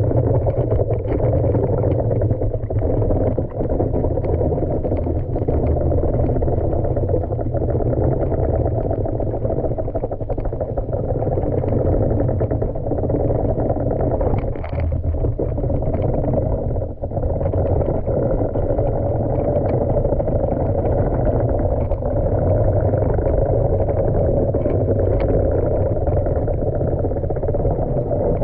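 Muffled, steady rushing rumble of a manual pool vacuum head and hose sucking water along the tiled floor, heard underwater, with many small knocks from the head moving over the tiles.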